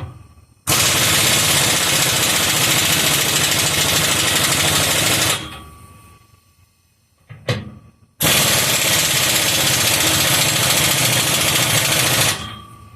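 Impact wrench running nuts down on exhaust clamps, in two runs of about four seconds each with a short pause between, tightening the front clamps.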